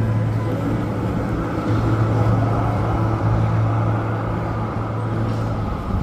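A large road vehicle's engine running with a steady low hum over road and motor noise, getting a little louder about two seconds in.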